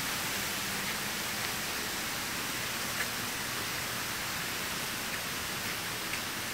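Steady, even outdoor hiss with a couple of faint ticks.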